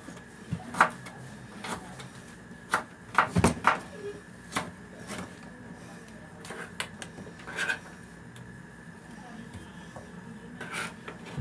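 Kitchen knife chopping vegetables on a plastic cutting board: uneven sharp taps, with a quick run of the loudest strikes a little past three seconds in.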